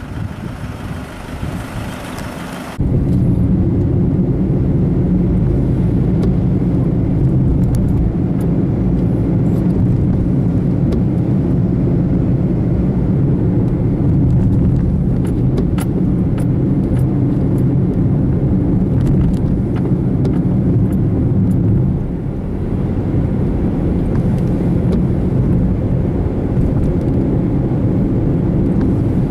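A car driving, with a steady low rumble of road and engine noise. The sound changes abruptly about three seconds in, from a thinner hiss to the fuller rumble.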